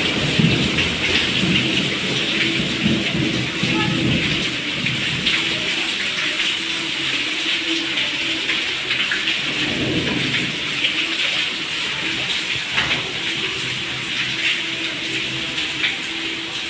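Steady rain falling and splashing into water pooled on a stone floor, with a low rumble swelling about ten seconds in.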